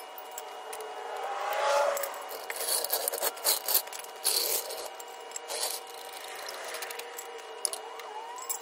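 Metal clinks, rattles and scraping of a car jack and jack stands being worked and handled, with a couple of short rising squeaks.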